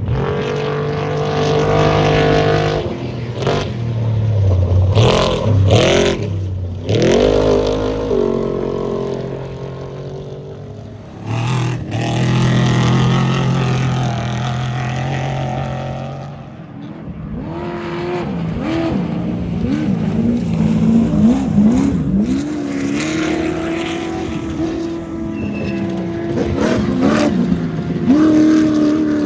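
Off-road race vehicles racing by one after another, their engines revving up and down repeatedly.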